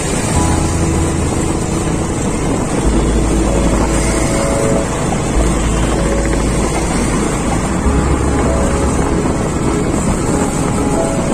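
Wind buffeting the microphone over the engine and road noise of a moving two-wheeler, a steady loud rush with a low rumble.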